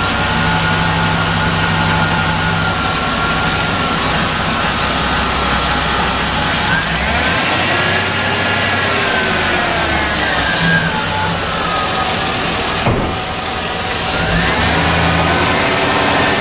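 2003 Chevy Silverado 2500 HD's 6.0-litre gas V8 idling after a reduced-engine-power repair. Its revs climb and fall back twice, a surging idle.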